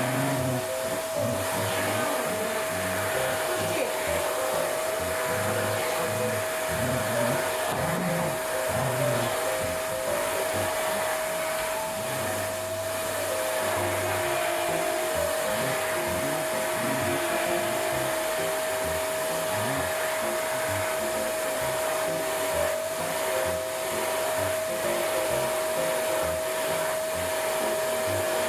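Pet grooming vacuum running steadily: a constant motor whine over a rush of air.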